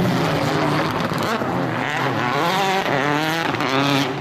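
Rally car engine revving hard under acceleration, its pitch climbing and dropping back as it changes gear.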